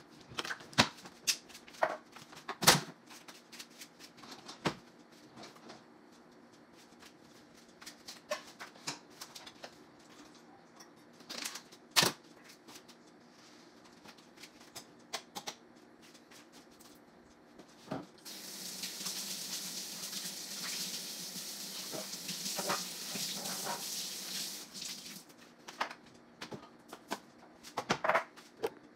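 Kitchen tap running into a sink of dishes for about seven seconds past the middle, with scattered clinks and knocks of dishes and utensils being handled before and after.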